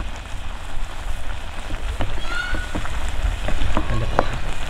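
Curry simmering and bubbling in a pan as a wooden spatula stirs boiled chickpeas and yam and plantain pieces, with scattered clicks and scrapes of the spatula and chickpeas against the pan.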